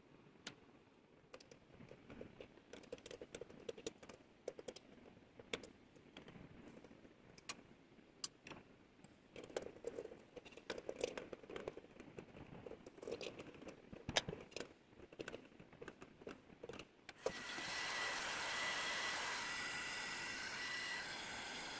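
Scattered clicks and knocks as the brass bowl and tools are handled on the bench. About seventeen seconds in, a cordless drill starts and runs steadily with a high whine, held against the brass bowl to polish it.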